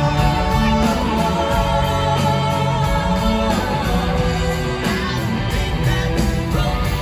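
Live rock band playing, with electric guitars, keyboard and drums, and lead singers singing together over it.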